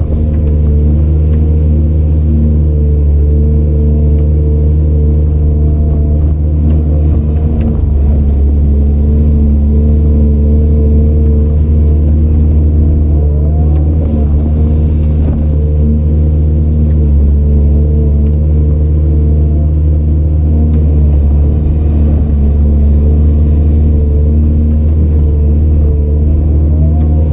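Heavy earthmoving machine's diesel engine running steadily under load, a deep continuous drone. Its pitch rises and falls briefly a few times, once about halfway through.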